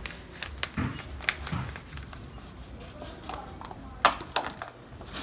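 Thin clear plastic cup crackling and clicking as it is squeezed and worked off a seedling's root ball, a scatter of small sharp clicks with the loudest about four seconds in.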